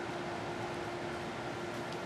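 Steady background hiss with a constant faint hum, unchanging throughout: room tone or recording noise.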